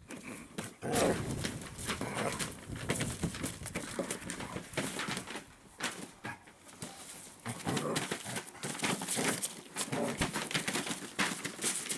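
A puppy and an adult dog play-wrestling: irregular scuffling and scrabbling on the floor, mixed with small vocal noises from the dogs now and then.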